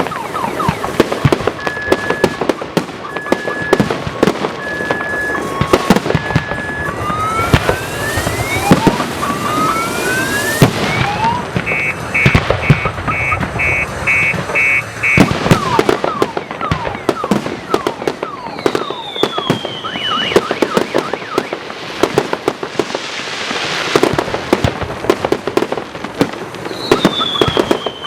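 Fireworks salute bursting in a dense, continuous run of bangs and crackles. Through the first half a car alarm sounds over it, going from evenly spaced beeps to rising sweeps and then rapid chirps. Later two descending whistles cut through, one just after the middle and one near the end.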